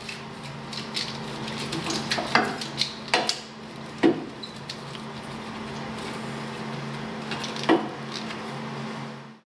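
Metal clinks and knocks as a throttle body and its throttle cable fittings are handled and worked into place, with a few sharper knocks, the loudest about four seconds in and another near the end. A steady low hum runs underneath, and everything cuts off suddenly just before the end.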